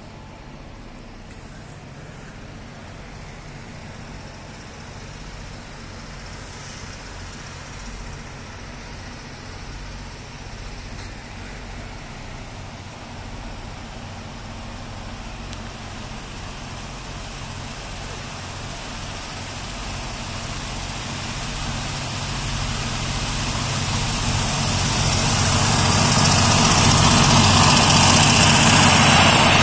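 GM G22UB diesel-electric locomotives working at full power up the grade, a low engine drone growing steadily louder as the train approaches, loudest and levelling off in the last few seconds.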